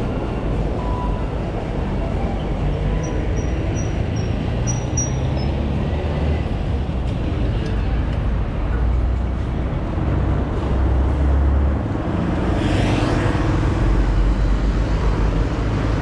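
Road traffic on a busy street: vehicle engines and tyres with a steady low rumble, including a motorcycle tricycle's engine running close by midway. A brief hiss rises about twelve seconds in.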